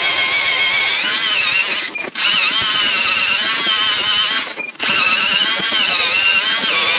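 StrikeMaster battery-powered ice auger boring through lake ice: a steady electric motor whine that wavers a little in pitch under load. It cuts out briefly twice, about two seconds in and again near five seconds.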